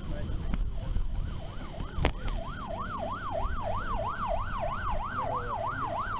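Emergency vehicle siren on a fast yelp, rising and falling about three times a second, fading in around a second and a half in and growing stronger. A single sharp knock sounds about two seconds in.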